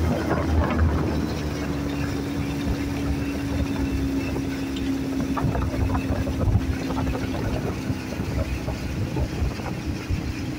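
Outboard motor of a small inflatable boat running at a steady throttle: one even drone over a rushing noise of water and wind.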